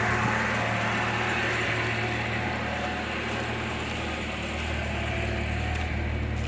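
Lada Niva Travel's 1.7-litre four-cylinder petrol engine idling steadily after start-up, running evenly with no knocks or rattles.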